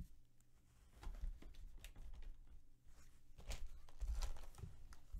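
Sports trading cards and their packaging handled by hand on a table: a few short rustles and soft taps as cards are sorted and set down.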